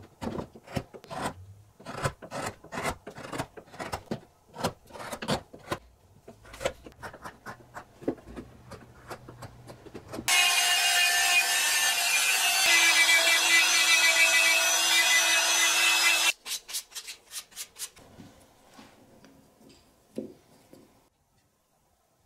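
Hand chisel paring a wooden block in quick repeated strokes for about ten seconds. A small handheld rotary tool with a sanding drum then runs against the wood for about six seconds, the loudest sound, followed by a few short scraping strokes.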